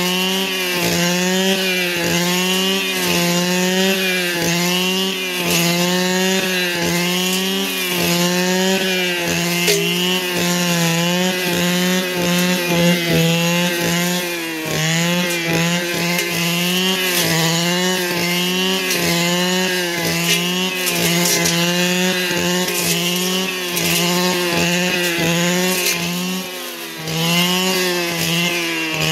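Small two-stroke engine running near full throttle, its pitch dipping and recovering about once a second as it takes load. It eases off briefly near the end.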